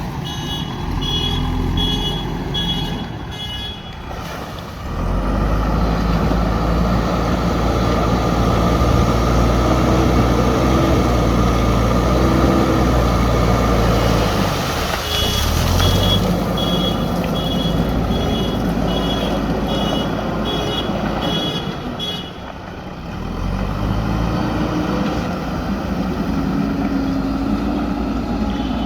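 JCB backhoe loader's diesel engine running hard as it works the sand, dipping and picking up again twice. Its reversing alarm beeps steadily for the first few seconds and again for several seconds in the middle.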